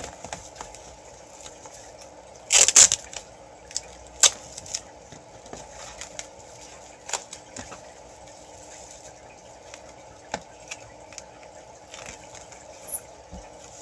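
Foil-backed insulation sheet and duct tape handled and pressed against a plastic tub: scattered rustles and sharp crinkles. The loudest is a short rasp about two and a half seconds in.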